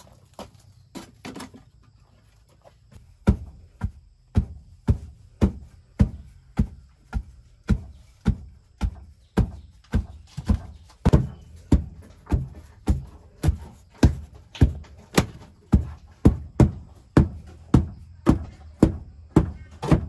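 Heavy, evenly spaced thuds of a hand tool striking repeatedly, nearly two a second, starting about three seconds in after a few lighter knocks.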